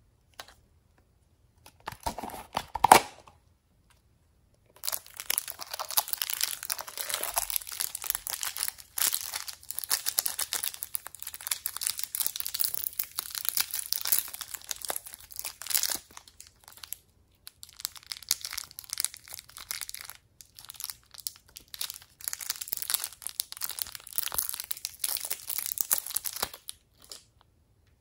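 Clear plastic wrappers crinkling and tearing as pieces of soft modelling clay are unwrapped by hand, with dense crackling that runs almost without a break. A short, louder burst of handling noise comes two to three seconds in.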